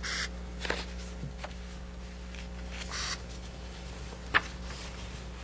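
Quiet meeting-room tone with a steady low hum, broken by a few brief rustles and small clicks of handling at the table; the sharpest click comes about four seconds in.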